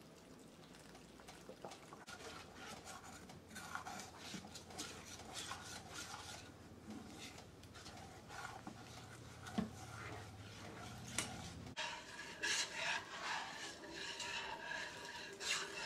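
A metal spoon stirring and scraping in a small stainless steel bowl, dissolving cornstarch in water for a thickening. Near the end the scraping gets busier as the slurry is poured into the pot and the spoon scrapes it out of the bowl.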